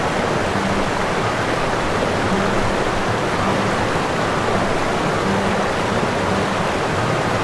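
Steady rushing of sea water, an even hiss without pitch, with faint low tones coming and going beneath it.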